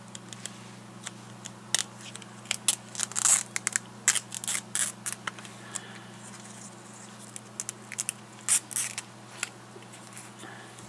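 Adhesive foam padding being peeled off around the screen of a Garmin nüvi GPS: irregular crackling and sharp ticks, in clusters about two to five seconds in and again around eight to nine seconds in.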